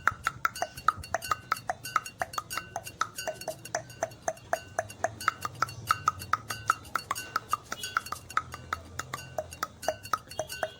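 A man's rapid tongue clicks, about four a second. Each is a short, pitched pop, and the pitch shifts from click to click.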